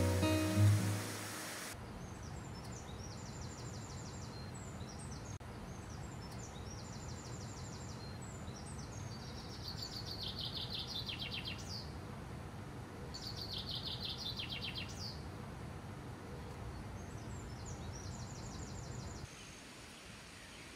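Acoustic guitar music cuts off in the first two seconds, leaving outdoor ambience with a steady low background. Over it a songbird sings repeated rapid trilled phrases, several of them sliding downward at the end.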